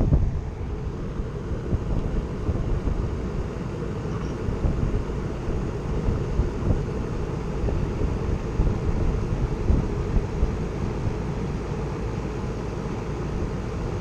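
Heat pump outdoor unit running in heating mode, its compressor and fan making a steady low running noise.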